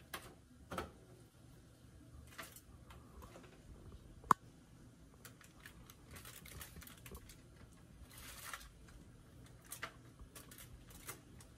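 Faint rustling of aluminium foil and small clicks as gloved hands arrange raw marinated chicken pieces on a foil-lined baking tray, with one sharp click about four seconds in.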